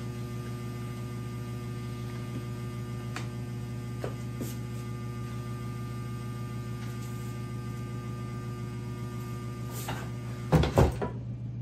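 Steady electrical mains hum. About ten and a half seconds in, two loud knocks.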